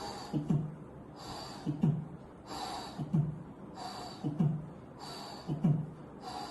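A person mimicking the heart sounds of tricuspid regurgitation with the mouth: a soft breathy hiss for the pansystolic murmur, then a short low thud, repeated about every 1.3 seconds, five times in all.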